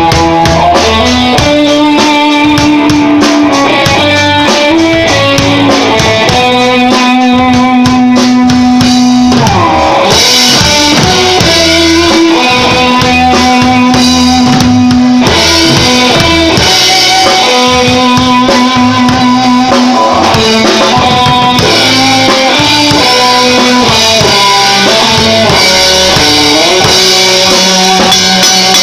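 Live rock band: a Stratocaster-style electric guitar plays a lead melody of long held notes with string bends over a drum kit's steady beat.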